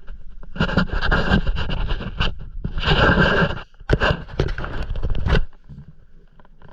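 Close scraping and rubbing handling noise on the microphone in three rough stretches, as the camera and fishing rod are moved about on the kayak; it stops sharply about five and a half seconds in.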